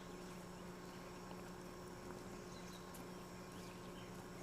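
Faint outdoor ambience: insects buzzing over a steady low hum.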